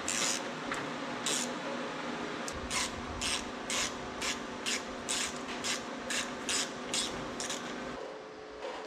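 Hand ratchet wrench rasping in short, even strokes, about two or three a second, as oil pan bolts are run in on the underside of an Oliver 1650 tractor engine, over a steady low hum.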